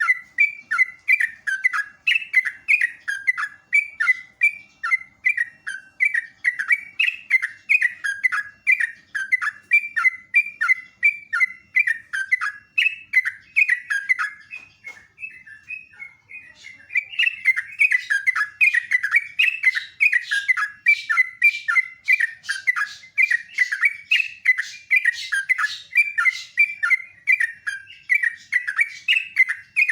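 Yellow-vented bulbul (trucukan) singing a long, rapid run of short chirping notes, two or three a second, with a short pause about halfway before the song starts up again.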